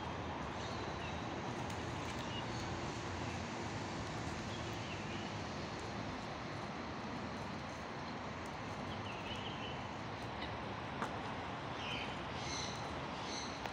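Steady outdoor background noise with short, faint high bird chirps scattered through it, more of them near the end, and a single click about eleven seconds in.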